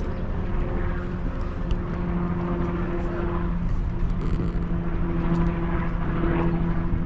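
Steady engine drone: a low hum held at one pitch over a rumble, slightly louder in the second half.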